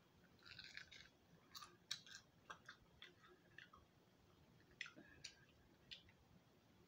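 Faint mouth sounds of chewing crispy fried guinea pig ear: an irregular scatter of small crunches and clicks.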